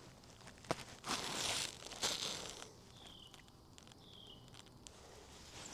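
Rustling and scraping handling noises with a sharp click about a second in, then two short, high, falling chirps about a second apart.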